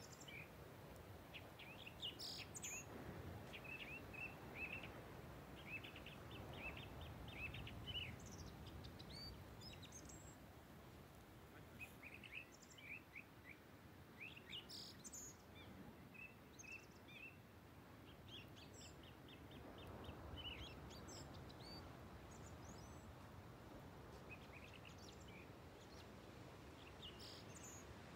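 Small birds chirping in short, quick series again and again, over a faint low rumble.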